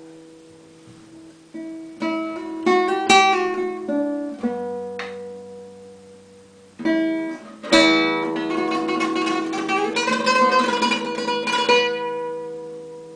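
Solo nylon-string classical guitar playing slow, ringing chords and single notes that die away, with sharply struck chords about three and eight seconds in, then a quick flurry of notes that fades near the end.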